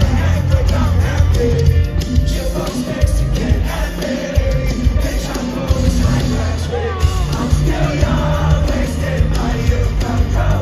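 Live rock band playing loudly through a concert PA, with electric guitar, bass and drums and voices singing over it, heard from the middle of the crowd.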